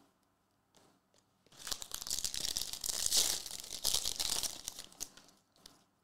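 Foil wrapper of a Prizm basketball card pack being torn open by hand and crinkled: a crackling tear that starts about a second and a half in and lasts about three and a half seconds.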